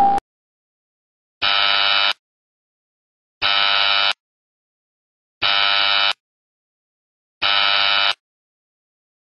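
Game-show style wrong-answer buzzer sound effect: four identical flat buzzes, each about 0.7 s long and two seconds apart. Each one marks a losing scratch-off ticket.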